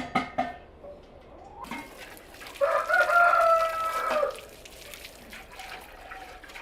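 A rooster crows once, a single held call of nearly two seconds starting about two and a half seconds in; a few short clucks come just before it, at the start.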